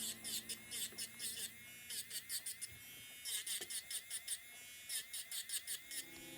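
Portable electric nail drill whining, its bit filing down a nail in quick rasping strokes that come in short runs with brief pauses.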